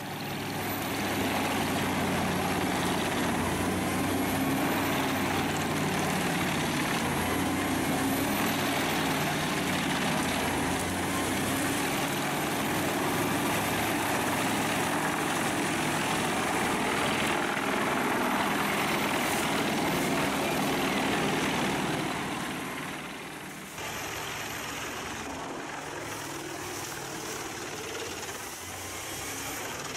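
Self-propelled drum wood chipper's Scania DC13 diesel engine running hard under a loud, even rush of noise. About three quarters through, the sound falls away and gives way to a quieter, steady engine running.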